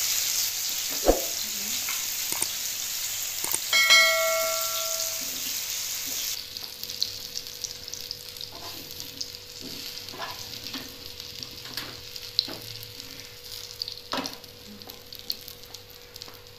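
Banana halves sizzling in hot margarine in a nonstick frying pan, with knocks and scrapes of a wooden spatula as they are turned and lifted out. About four seconds in there is a short ringing clink. About six seconds in the sizzle drops abruptly, and fainter sizzling and spatula taps follow.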